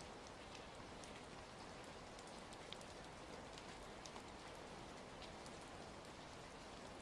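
Faint, steady rain, with scattered small pops and crackles of a fire mixed in.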